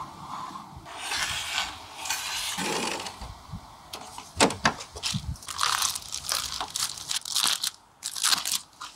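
Plastic parts of an air purifier being handled: a long scraping hiss, a sharp click, then crinkling rustles of clear plastic wrapping being peeled off a filter toward the end.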